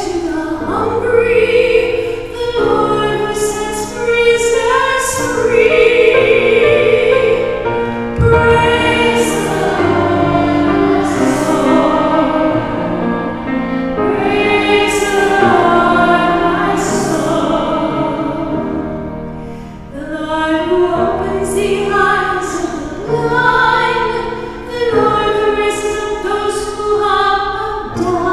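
Responsorial psalm being sung: voices singing a slow sacred melody in long held notes with vibrato.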